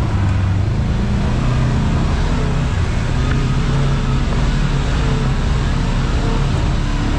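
Side-by-side UTV engine running steadily as the machine drives along a dirt trail, with the noise of the ride underneath.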